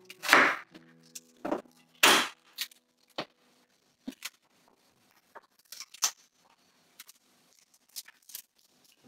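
Knife chopping garlic on a wooden cutting board: two sharp strokes in the first couple of seconds, then scattered light taps and rustles of parchment and foil as the cloves are pressed into a raw leg of lamb.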